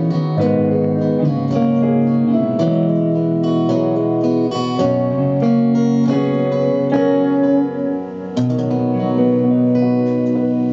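Live country band playing the instrumental outro of a song, led by strummed and picked acoustic guitar. The sound dips briefly about eight seconds in, then a long chord rings out.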